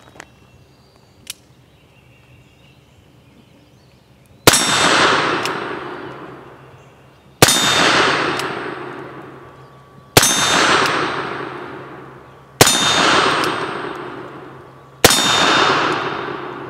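Five black-powder shots from a .44 cap-and-ball revolver, a brass-framed Colt 1851 Navy replica built as a Griswold and Gunnison, fired one at a time about two and a half seconds apart. Each shot has a long echo that fades over two to three seconds, with a faint metallic ring in it.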